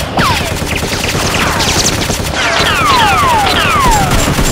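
Machine-gun fire sound effect dubbed over toy blasters: a rapid, continuous string of shots, with repeated falling whistles running through it.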